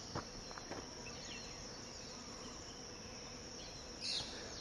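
Insects trilling in one steady high-pitched drone from the trailside vegetation, with a short higher chirp about four seconds in.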